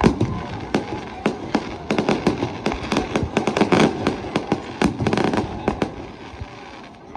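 Aerial fireworks display going off in a rapid barrage of bangs and crackling reports, densest in the middle and thinning out about six seconds in.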